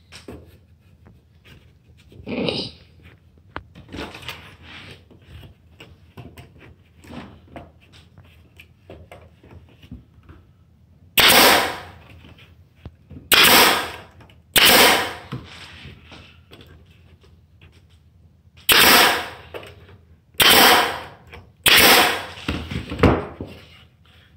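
Pneumatic staple gun firing staples into wooden boards, about seven sharp shots spaced one to four seconds apart in the second half, each trailing off briefly. Before them, light knocks of the boards being handled and lined up.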